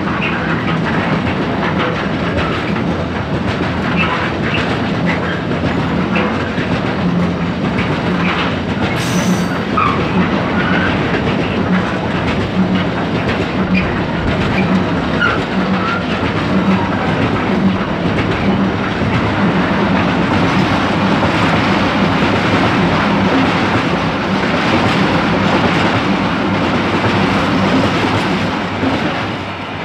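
Loaded car-carrier wagons of a car-shuttle train rolling past at speed, wheels clattering rhythmically over the rail joints, with a few brief wheel squeals; the noise drops away near the end.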